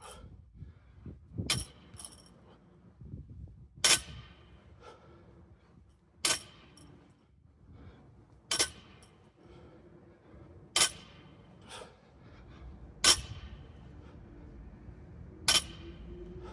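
Loaded barbell plates clanking against the ground on each deadlift rep: a sharp metallic clank about every two and a quarter seconds, seven times.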